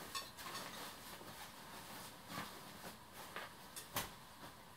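Faint handling noise as a jacket is laid on a scale: soft rustling and a few light taps, the loudest about four seconds in.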